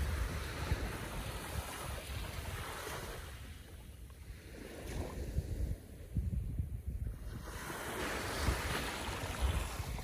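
Small, gentle ocean waves lapping and washing up onto a sandy beach, a soft hiss that fades to its quietest about four seconds in and swells again near the end as the next wave comes ashore.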